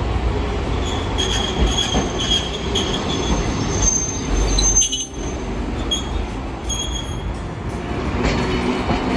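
Hiroden 1900-series streetcar passing close by on street track, its steel wheels rumbling on the rails. Short, high-pitched wheel squeals come and go through the pass.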